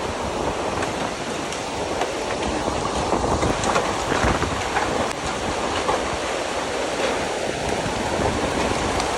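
Floodwater rushing, a steady wash of water noise, with wind buffeting the microphone.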